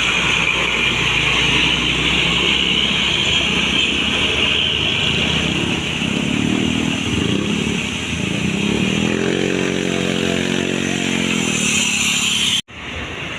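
Tour bus engine running loudly under heavy road and wind noise. A low droning tone swells briefly, then rises, holds for a couple of seconds and falls away. The sound cuts off abruptly near the end and comes back quieter.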